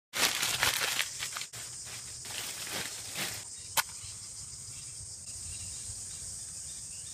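Matches being struck on a matchbox and held to dry twig kindling: scratchy strikes and rustles in the first few seconds, a sharp click a little under four seconds in, then a steady high hiss.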